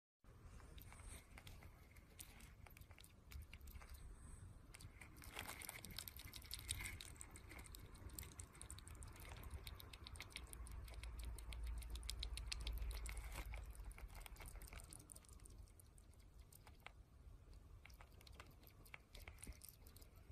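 Hedgehog drinking from a bowl: a quiet run of quick, soft lapping clicks, densest in the middle and thinning out towards the end.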